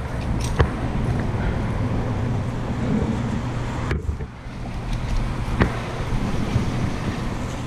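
Steady low engine hum under a rushing, wind-like noise, with a few scattered clicks; it dips briefly about four seconds in.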